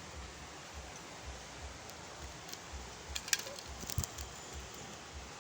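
Steady outdoor background noise with a few small, sharp clicks, a quick cluster a little past three seconds and one more at about four seconds.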